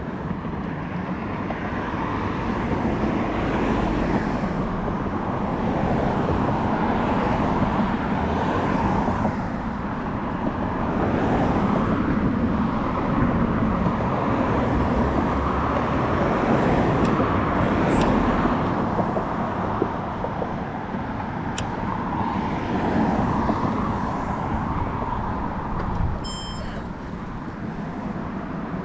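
Road traffic from a nearby street, cars passing one after another so the noise swells and fades every few seconds. There is a brief high ringing sound about 26 seconds in.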